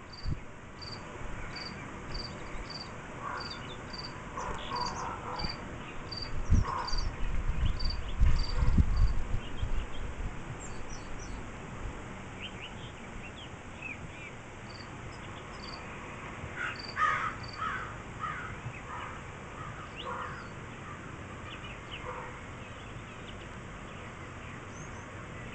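Nature soundtrack of a dog-sitter DVD playing through a TV: an insect chirping at a steady pace of about two chirps a second, mixed with scattered bird calls that are busiest a little past the middle. Low thumps come about six to nine seconds in.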